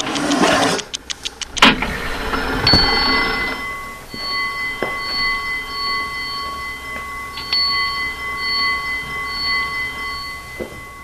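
Wall clock spun flat on a tabletop: a rattling whir that stops with a sharp click a little under two seconds in. Then a bell-like metallic ringing starts and rings on, struck again about halfway through.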